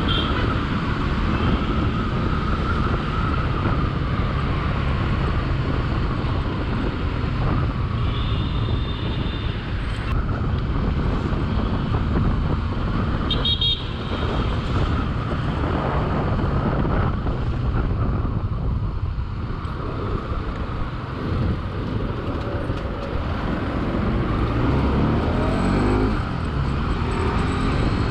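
Bajaj Pulsar 200NS single-cylinder engine running under way in road traffic, with a few short vehicle horn beeps. The revs climb near the end.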